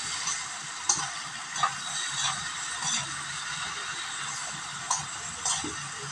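Diced bottle gourd (opo) sizzling in a pan as it is stirred, the spatula scraping and clicking against the pan about six times at uneven intervals.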